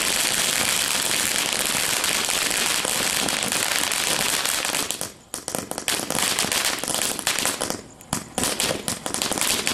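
Fireworks crackling densely, a rapid continuous stream of sharp pops, dropping away briefly about five seconds in and again about eight seconds in before picking up again.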